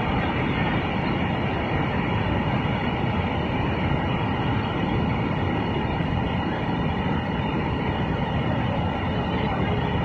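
Waterfall: a steady rush of falling water, unchanging throughout.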